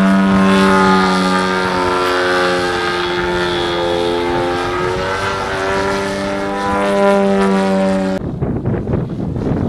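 Engine and propeller of a radio-controlled aerobatic airplane in flight, a steady buzzing drone whose pitch sags a little midway and rises again as the throttle changes. About eight seconds in it cuts off abruptly and a rushing noise takes over.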